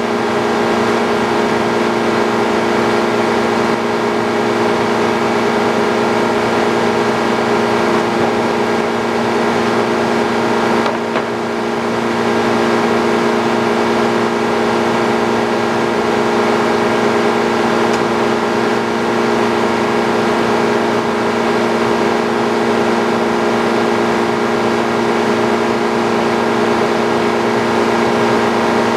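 Frick OO circular sawmill running steadily: a loud, even machine drone holding several steady pitches, dipping slightly for a moment about eleven seconds in.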